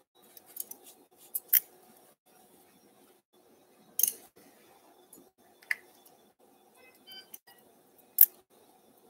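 Surgical scissors snipping tissue during dissection, in sharp, scattered snips: about six cuts, the loudest near the end. A faint steady hum runs underneath.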